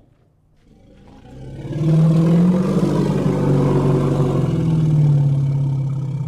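Sumatran elephant giving one long, low, growling call that swells up about a second in and then holds steady, loud and deep, for several seconds.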